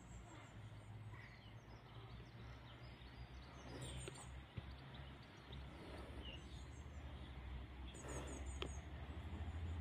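Faint open-air ambience with a few bird chirps over a low rumble that grows toward the end as a diesel passenger train approaches the level crossing.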